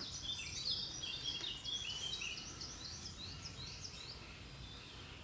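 A small songbird singing a long, fast run of short high notes that fades out about four seconds in, over a steady low outdoor background.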